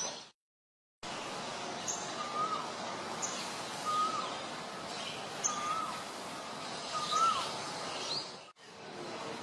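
A sogon bird calling in the wild: a short whistled note, dipping at its end, repeated about every one and a half seconds over a steady background hiss. The sound cuts out briefly near the start.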